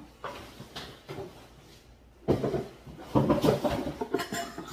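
Tissue paper rustling and a cardboard gift box being handled as a wrapped item is lifted out: a few soft knocks at first, then a burst of crinkly rustling about two seconds in.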